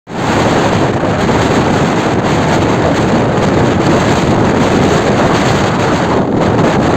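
Loud, steady wind buffeting the microphone over the surf of a rough, stormy sea, an even hiss and rumble with no breaks.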